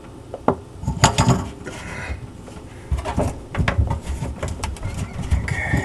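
Metal sink drain parts and tools being handled while the old strainer basket is worked loose: scattered clinks and knocks with a few short scrapes.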